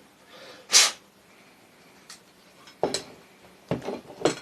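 Handling of a disassembled sewing machine motor and its parts: one short, loud scraping burst about a second in, then several sharp clicks and knocks near the end.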